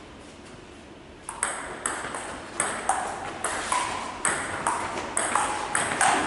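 Table tennis ball clicking back and forth between bats and table in a fast doubles rally, two to three sharp hits a second, starting about a second in.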